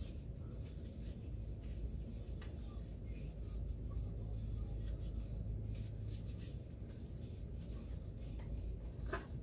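Cotton patch rubbing and wiping along a stainless steel pistol slide, with light scattered clicks and taps as the metal is handled. A steady low hum runs underneath.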